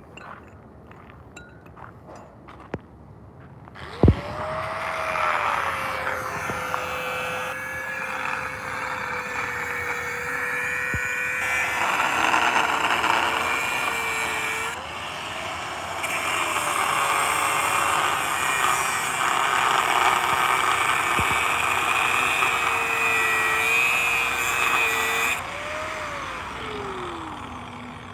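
Angle grinder with a cutting disc switched on about four seconds in and running at speed for about twenty seconds, cutting steel reinforcing rods. Its high motor whine dips in pitch a few times under load over a harsh grinding noise. Near the end it is switched off and the whine falls away as the disc winds down.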